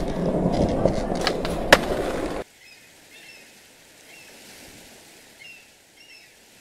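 Skateboard wheels rolling on a hard floor with a couple of sharp clacks, cutting off suddenly about two and a half seconds in. After that only faint hiss with a few short, high chirps remains.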